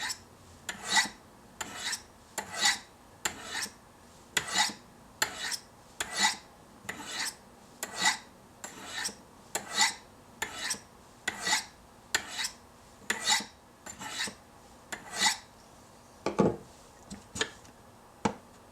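Knife blade scraped in steady alternating strokes down the corner edges of a Spyderco Sharpmaker's medium ceramic stones set at 40 degrees, about one stroke a second, as a quick edge touch-up on a Chris Reeve Sebenza. The strokes stop a little past three-quarters through, followed by a knock and a few light clicks as the stones are handled.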